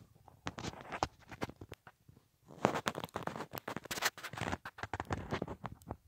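Irregular scratching and crackling clicks in two spells, the longer and louder one starting about two and a half seconds in.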